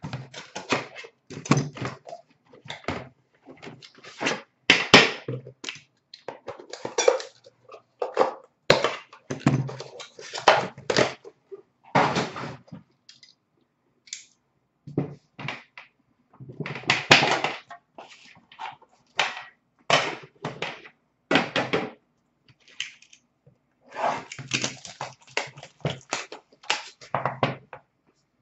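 Irregular handling noise as a hockey card box is unboxed: cardboard sliding and rustling, with metal card tins knocked and set down on a glass counter in short bursts.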